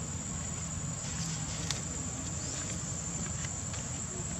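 Steady high-pitched insect chorus buzzing on one level tone, over a low background rumble, with a few faint clicks.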